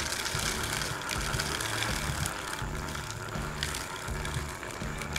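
Hand-cranked broadcast seed spreader being turned steadily, its gears making a continuous rapid clicking whir as it flings seed.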